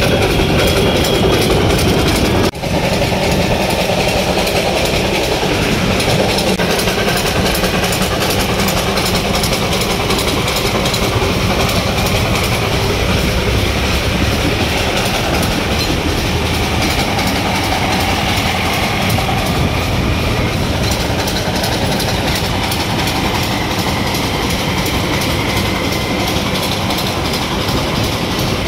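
Darjeeling Himalayan Railway steam toy train running, with a steady rumble and the clatter of its wheels on the rails. The sound briefly cuts out about two and a half seconds in.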